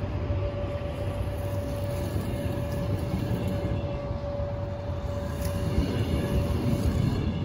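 Train running at a station: a steady low rumble with a constant high hum over it.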